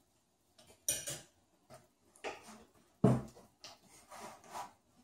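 Slime being kneaded and squeezed by hand in plastic bowls on a wooden table: a string of irregular short squishes and bowl knocks, with one louder knock about three seconds in.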